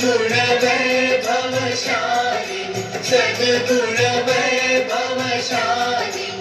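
A song playing: sung vocals, with several voices, over instrumental backing.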